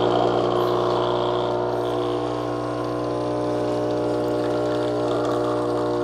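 KitchenAid KES6404 semi-automatic espresso machine's pump running with a steady, even hum, pushing water through the portafilter as a single shot of espresso pours.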